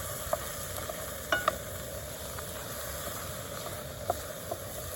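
Quorn mince and chilli sauce sizzling steadily in a pan, with a few sharp clinks of a utensil against the pan as it is stirred, two of them close together about a second and a half in.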